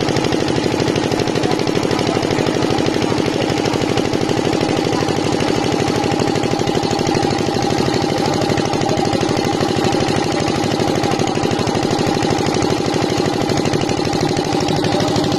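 An engine running steadily close by: a loud, fast, even pulsing with a steady hum that does not change.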